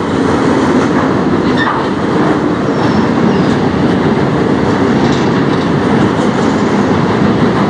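Freight train flatcars rolling past, a steady rumble of steel wheels on the rails.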